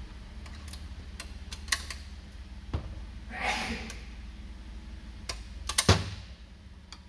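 Scattered sharp metal clicks and knocks as parts are handled in and around the JF506E automatic transmission's aluminium case, with a quick cluster of the loudest knocks about six seconds in. A short rustling noise comes about halfway through, over a steady low hum.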